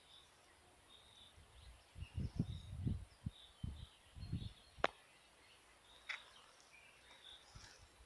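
Small songbirds calling in short high chirps that repeat every half second or so. From about two seconds in come low rumbling thumps, with a sharp click near the middle.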